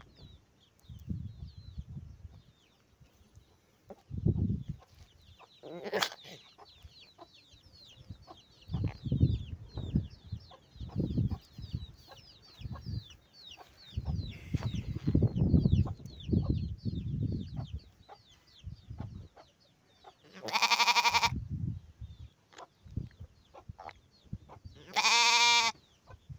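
A lamb coughing again and again in short low bursts, a wet cough that is a sign of pneumonia. A sheep bleats loudly twice near the end.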